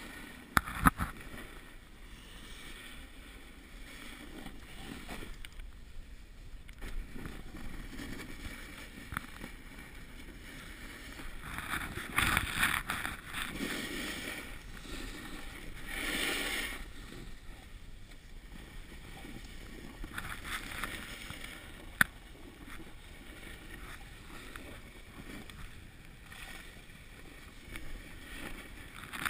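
Snowboard sliding down a snowy slope: a steady hiss of the board on snow that swells into louder scrapes as the edge digs in through turns, about twelve, sixteen and twenty seconds in. Two sharp knocks, one right at the start and one about twenty-two seconds in.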